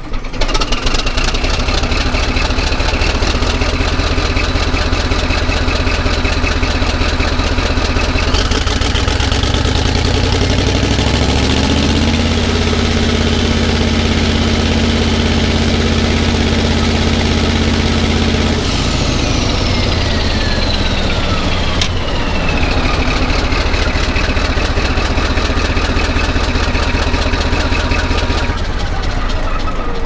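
CAT D11 bulldozer's diesel engine running loud through a straight, unmuffled exhaust stack. About ten seconds in it revs up with a rising turbo whistle, holds high for several seconds, then winds back down to idle around twenty seconds in.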